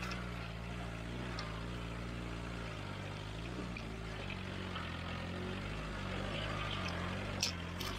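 Off-road jeep engine running at low revs while driving slowly over a rough dirt track, its pitch rising and falling slightly. A brief knock near the end.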